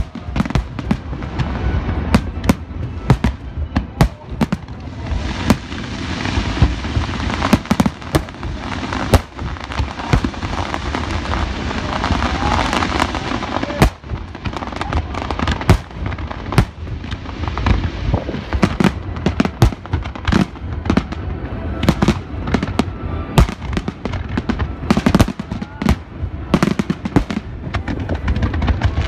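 Fireworks finale: aerial shells bursting in rapid succession, bang after bang. About five seconds in, a dense crackling swells up and lasts some eight seconds before the separate bursts take over again.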